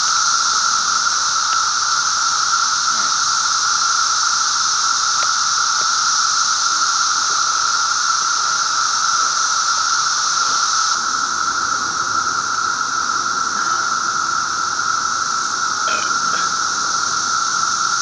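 Dense chorus of cicadas in the trees: a steady, unbroken drone with two pitches sounding together.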